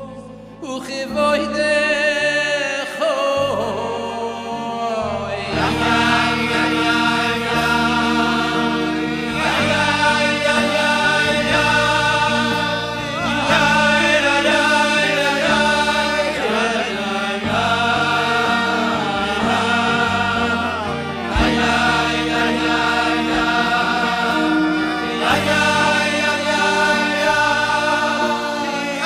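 Men singing a Hasidic song into microphones, several voices together, over amplified instrumental accompaniment with a steady bass.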